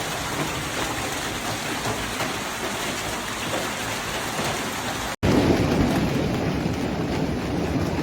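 A heavy hailstorm: hailstones falling and hitting surfaces in a dense, steady rush. After a cut about five seconds in, it is louder and heavier.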